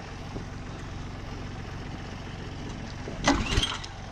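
A Kubota tractor's diesel engine idling steadily. About three seconds in comes a short, loud rattling burst: a pull on the recoil starter of the pressure washer's small gasoline engine.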